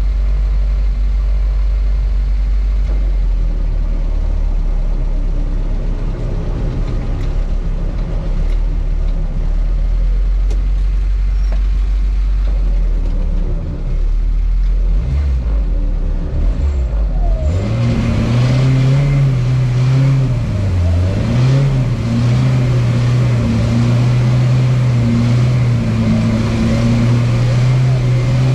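Lada Niva's engine running: a low rumble at first, then about two-thirds of the way in a higher, steady engine note that rises and falls slightly.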